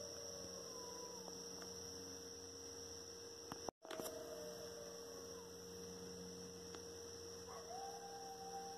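Coyotes howling faintly: several long, slow howls that slide down in pitch, overlapping, with one rising and holding before falling away near the end. A steady electrical hum runs underneath, and the audio drops out for an instant just before halfway.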